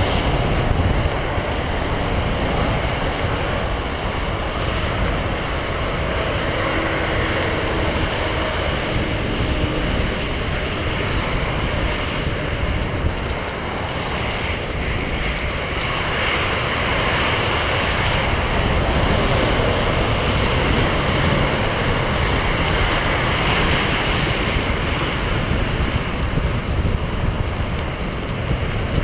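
Steady rush of wind on the microphone, mixed with tyres rolling over a rough gravel path.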